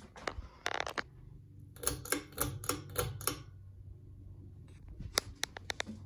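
Turn of the Century ceiling fan running with a steady low motor hum. Over it come irregular clicks: a quick run of about six a couple of seconds in, and a few sharp ones near the end.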